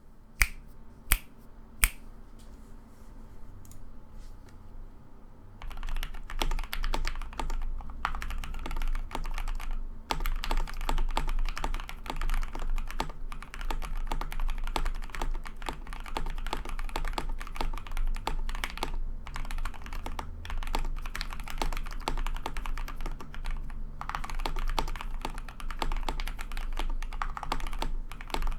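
Typing on a 65% custom mechanical keyboard (KBD67 Lite R2 kit, all foam installed) with lubed and filmed Alpaca linear switches. A few single sharp key strikes in the first two seconds give way to steady, fast typing from about six seconds in.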